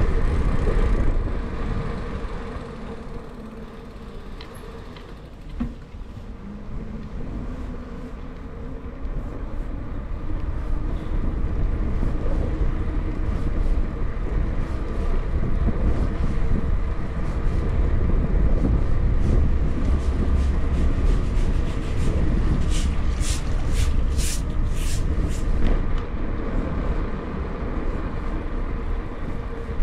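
Street noise heard from a moving bicycle: a steady low rumble with passing traffic. About three quarters of the way in comes a quick run of short hissing sounds.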